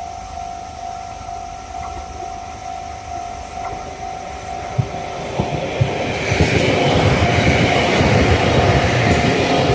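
Japanese level-crossing alarm bell ringing in a steady, rapidly repeating tone while a train approaches and passes over the crossing: from about five seconds in, the rumble of the train and the knocks of its wheels over rail joints build up and are loudest near the end.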